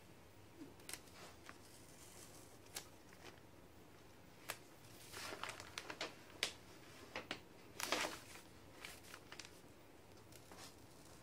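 Paper backing and vinyl of a paint stencil crinkling and crackling as they are peeled back and torn away, in short scattered crackles. A cluster of rustles comes about five to six seconds in, and the loudest rustle comes about eight seconds in.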